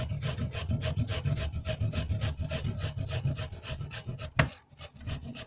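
Carrot being grated quickly on a flat stainless steel hand grater, with rapid rasping strokes several times a second that thin out near the end. A single sharp knock about four and a half seconds in.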